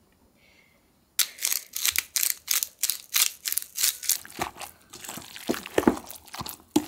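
After about a second of near silence, a hand pepper mill grinds in quick, crunchy, regular turns. Then a wooden spoon stirs the wet kimchi and tofu mixture in a stainless steel bowl, with knocks against the metal.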